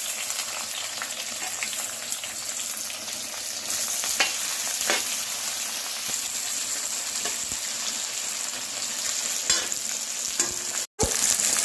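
Sliced onion and garlic sizzling in hot oil in a kadai, with a few light clicks of the stirring spoon. The sound cuts out for an instant near the end.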